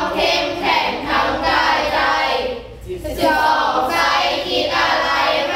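A group of children singing a song together in long held phrases.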